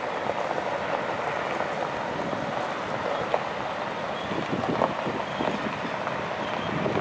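Pickup truck towing a loaded flatbed trailer rolling slowly over gravel, with scattered crunches from the tyres and an even rushing noise underneath.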